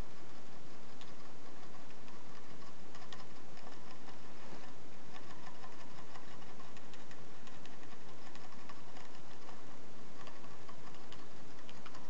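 Syrian hamster licking the metal spout of a gravity-fed water bottle, making a quick, irregular ticking of small clicks.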